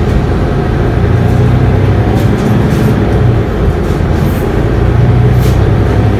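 Mercedes-Benz Citaro city bus running, heard from inside the passenger cabin: a loud, steady low engine drone that swells slightly about five seconds in.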